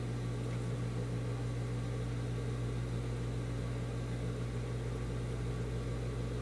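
A steady low mechanical hum that holds unchanged throughout, with no stitching rhythm.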